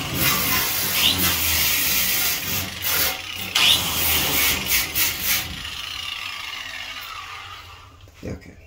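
Makita angle grinder grinding rust and old coating off the rim of a metal bathtub's drain opening, taking it down to clean metal before the drain is rebuilt. The grinding stops about five and a half seconds in and the motor winds down.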